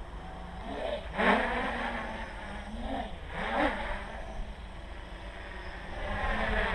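Armattan CNC 355 quadcopter's motors and propellers whining steadily, with two sharp throttle bursts where the pitch rises and falls, about a second in and again past three seconds in.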